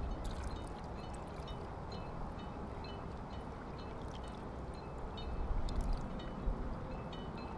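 Ambient recording of water running or lapping steadily, with a low rumble underneath and faint short high chirps scattered through.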